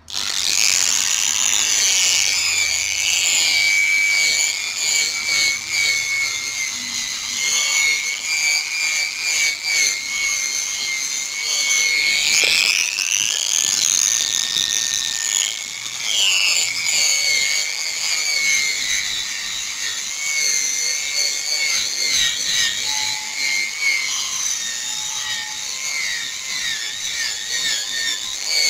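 Small handheld electric rotary sander whining at high speed as it wet-sands a plastic motorcycle headlight lens, the final and finest sanding step of a headlight restoration. The whine holds steady, its pitch rising and falling a few times as the load changes.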